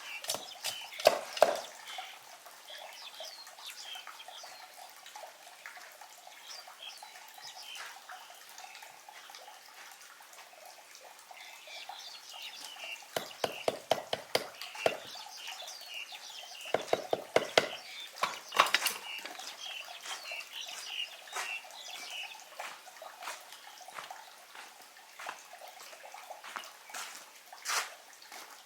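Small birds chirping in the background, with bursts of quick, light clicking and knocking from objects being handled: a run of clicks near the start, two clusters of rapid taps around the middle, and a single sharp knock near the end.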